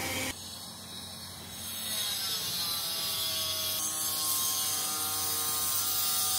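Footsteps crunching and scraping over loose broken stone and gravel. The sound of the passing train cuts off abruptly a moment in, and a faint whine that slowly wavers in pitch runs underneath.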